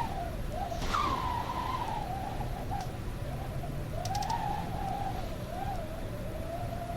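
Wind howling: a wavering whistle that slides up and down in pitch over a low, steady rumble, swelling about a second in and again around four seconds.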